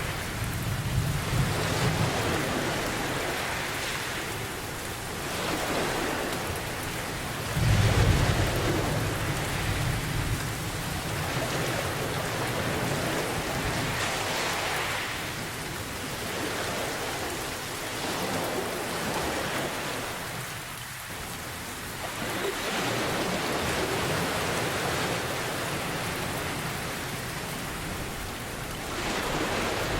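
Steady rain with low thunder rumbles, one coming in suddenly about a quarter of the way through.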